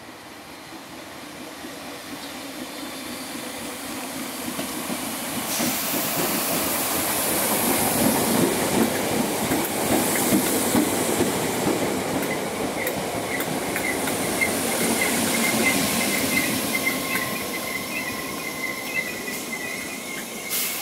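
Merseyrail PEP electric multiple unit running into the station, growing louder as it nears, its wheels clattering and rumbling on the rails as it passes close by. From about halfway through a high, wavering squeal joins in as it brakes to a stop, with a sharp knock near the end.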